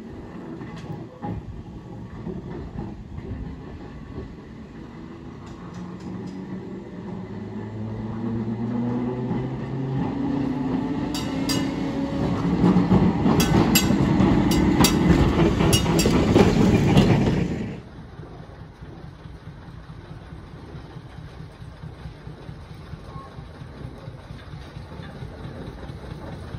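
Double-decker electric tram approaching and passing close by: the motor whine rises in pitch as it gathers speed, and the wheels clack over rail joints and points, loudest about two-thirds of the way through. The sound cuts off suddenly after about eighteen seconds, leaving a quieter steady background.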